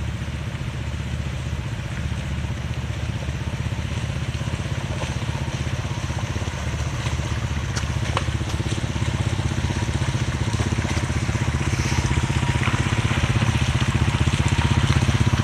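A vehicle engine running steadily with a low, pulsing note, getting gradually louder as the vehicle approaches along the trail.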